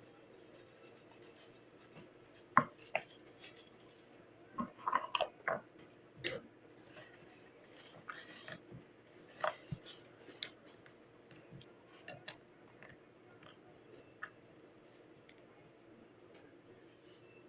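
Slime being handled and squished: scattered short wet clicks and pops, the sharpest about two and a half seconds in and a quick cluster around five seconds, over a faint steady hum.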